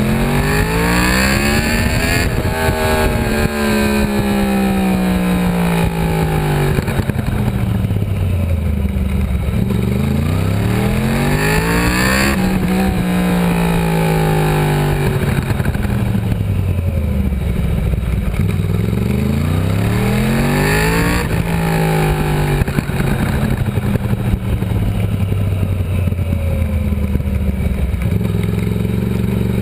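Stock Yamaha YZF-R1 (RN22) crossplane inline-four running under way, heard from on the bike: the engine pitch climbs as it accelerates and then falls away as it slows, about four times over. It has the uneven, big-bang firing note of the crossplane crank through the standard exhaust.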